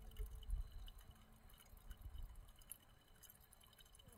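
Filtered water trickling and dripping faintly from a squeeze filter on an upturned soft bottle into a plastic water bottle, with some low wind rumble in the first second.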